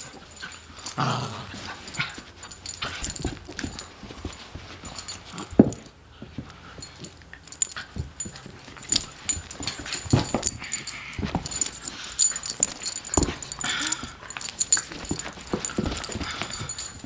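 Beagle puppy making short dog noises while play-wrestling with a person's hand, among scuffling on carpet; many brief sharp sounds come and go throughout.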